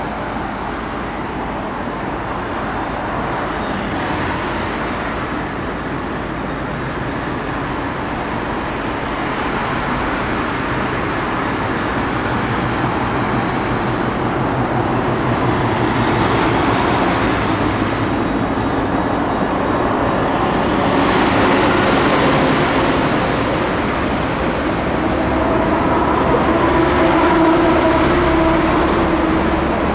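Steady road traffic noise, with vehicles passing and swelling louder several times.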